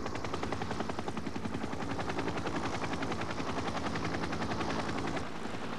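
Helicopter in flight: fast, even rotor chopping over a steady engine drone, the chopping giving way to a steadier rushing noise about five seconds in.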